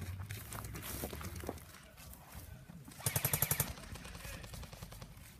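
A short burst of rapid automatic rifle fire, about a dozen shots in well under a second, about three seconds in.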